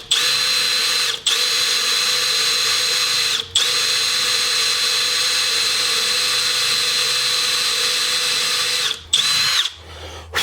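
Electric drill running with a 3 mm bit, drilling slowly into a broken steel bolt to make a pilot hole for a screw extractor. It runs steadily with a high whine, stops briefly twice, and finishes with a short burst before stopping near the end.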